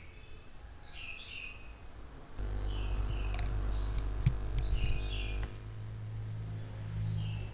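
Small bird chirping in short bursts, roughly every second or two, picked up by the microphone. From about two seconds in until about five and a half seconds, a louder low hum sits underneath, with a few sharp clicks.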